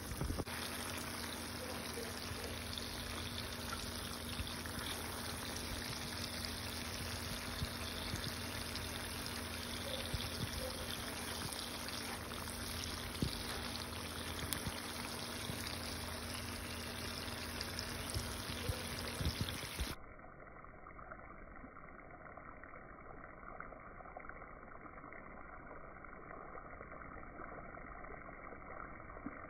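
Thick seafood-boil sauce bubbling hard in a pan, a steady sputtering hiss broken by a few sharp pops. About two-thirds of the way through, the sound cuts to a quieter, muffled stretch.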